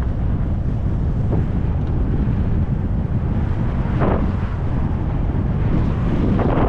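Wind buffeting the microphone of a skier's camera during a downhill run, a steady loud rumble. The skis scrape briefly on packed snow about four seconds in and again near the end.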